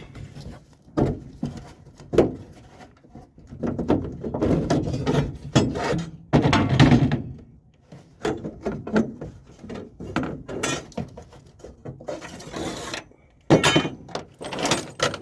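Rummaging: an irregular string of knocks, thunks and clatter, with a stretch of rustling near the end, as someone hunts for dropped keys wedged in a tight spot.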